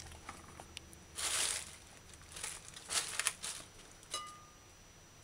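Thin plastic bags crinkling in short rustles, three or four times, as bagged ingredients are handled, then a single light clink about four seconds in.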